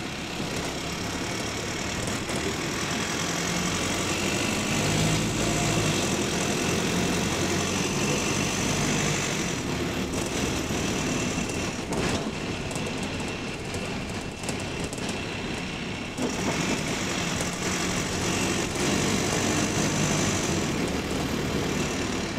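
Diesel engine of bus WS113 running under load, heard from inside the passenger saloon, with a clickety-clack that the uploader puts down to the engine's connecting rods. It builds up twice, as the bus pulls away, easing off between.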